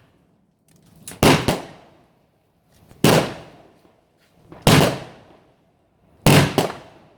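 Fireworks exploding overhead: six sharp bangs, two pairs close together and two single ones about a second and a half apart, each fading away in an echo.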